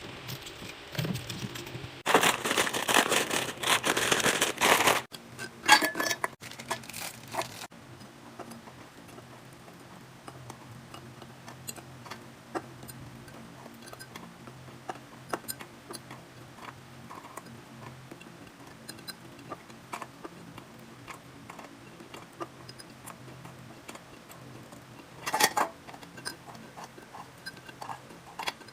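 Packaging and containers being handled while a fridge is restocked: a loud stretch of rustling a couple of seconds in, a run of clicks and taps, then scattered light clicks over a faint steady hum, with another short rustle near the end.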